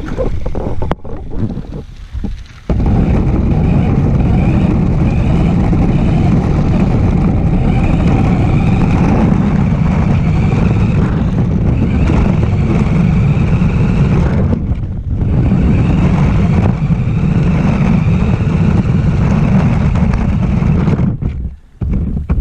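Radio-controlled car running over the driveway, a loud steady rumble with a faint higher motor whine. It dips briefly about two thirds of the way in and stops near the end.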